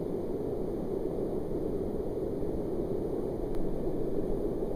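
Whitewater rapid rushing steadily: an even roar of churning river water, deepest in the low end.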